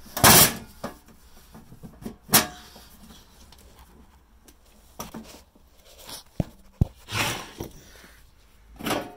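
Sheet-metal top cover of a UPS being slid and lifted off its chassis: several short scraping swishes, the loudest at the start, and two sharp clicks close together about six and a half seconds in.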